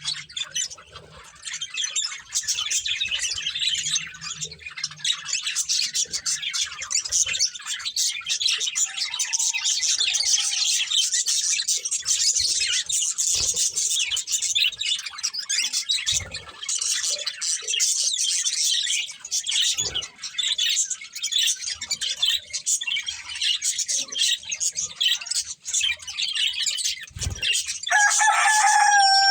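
Budgerigars chattering and chirping continuously in quick, high warbles. Near the end a louder, lower drawn-out call comes in, falling in pitch.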